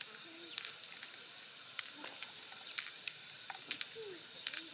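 Pearls clicking against one another and the mussel shell as they are picked out and gathered in a palm: sharp short clicks about once a second, some in quick pairs, over a steady high-pitched background hum.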